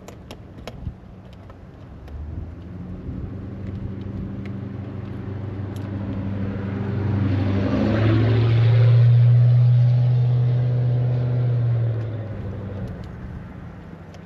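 A motor vehicle drives past on the road: its engine hum and tyre noise build up over several seconds, are loudest about nine seconds in, then fade away.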